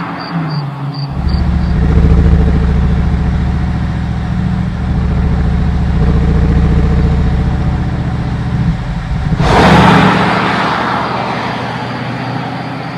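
Bentley Continental GT3-R's 4.0-litre twin-turbo V8 exhaust, loud and steady from about a second in. Around ten seconds there is a loud rushing burst, and the sound then fades away.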